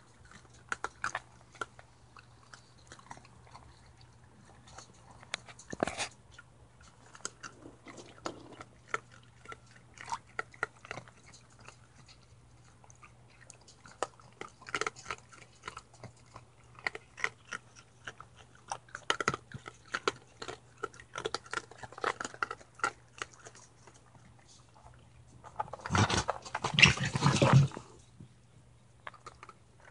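Raccoons chewing and crunching small food pieces fished from a water bowl: irregular sharp crunches and clicks. Near the end comes a louder scuffling burst of noise lasting about two seconds.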